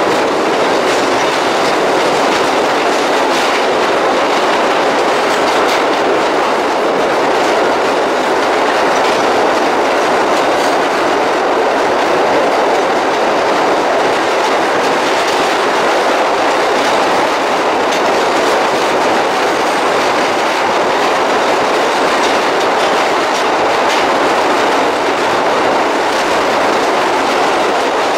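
New York City subway train running through a tunnel, heard from inside the car: a steady loud rumble of wheels on rail with scattered clicks from wheels crossing rail joints.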